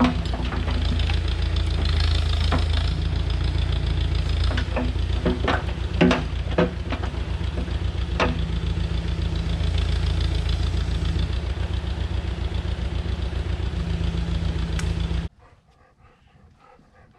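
Heavy-equipment engine running steadily, with several sharp knocks in the middle; the engine sound cuts off suddenly about fifteen seconds in.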